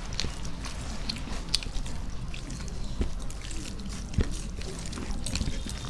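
Eating sounds from a meal of rice with curry: chewing, small wet squelches and light clicks against plates, scattered irregularly over a low steady hum.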